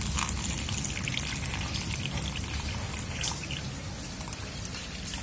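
Water poured in a thin stream from a bowl into a small pot lined with pebbles and shells, trickling and splashing steadily.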